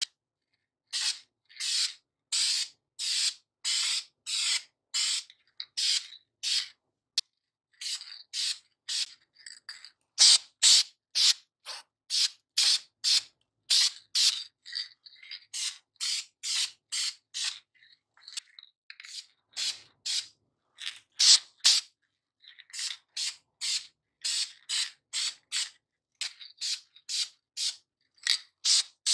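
Hand-worked rubbing or scraping strokes, about two or three a second, each a short hiss, with a few brief breaks in the rhythm.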